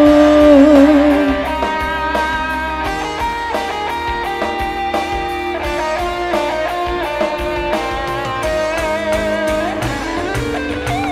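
Live band playing an instrumental break: an electric guitar carries the melody over a steady drum beat, after the singer's held note ends about a second in.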